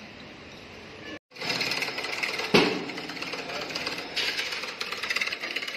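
Pillar drill boring a hole through flat steel: the motor runs steadily and the bit grinds through the metal, with a sharp clank about two and a half seconds in. The sound starts after a brief dropout about a second in.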